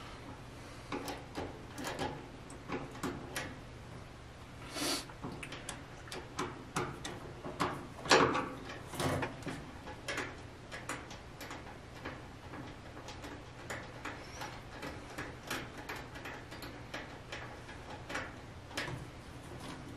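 Irregular clicks, knocks and short scrapes of a hand and a screwdriver working at an electric dryer's power-cord terminal block, with the loudest scrape about eight seconds in.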